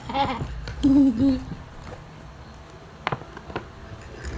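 Short wordless vocal sounds from a person's voice in the first second and a half, then two sharp clicks about three seconds in.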